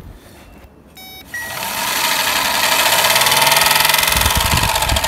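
A power probe beeps briefly about a second in, then the Chevy Impala's electric radiator fan motor, fed power directly from the probe, spins up with a whir and rush of air that grows louder over about two seconds and then runs steadily: the fan motor itself works.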